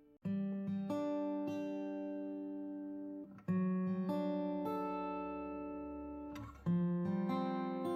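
Background music of an acoustic guitar picking single notes and chords that ring and fade. A loud new chord comes about every three seconds, with lighter plucked notes in between.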